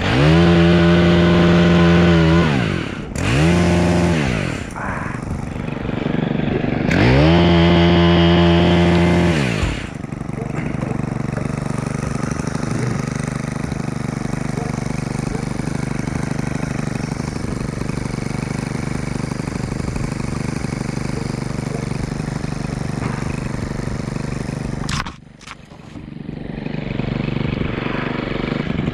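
Small two-stroke saw engine (chainsaw or pole pruner) revved to full throttle three times in short bursts in the first ten seconds, as when cutting limbs, then idling steadily for most of the rest. It drops away briefly near the end and revs up again just as it finishes.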